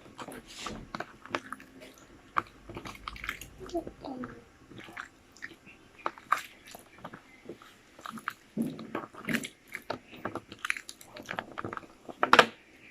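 Wet homemade slime of white glue and liquid laundry detergent squelching and clicking irregularly as it is squeezed and kneaded by hand, with a louder snap near the end. It is over-wet from too much detergent.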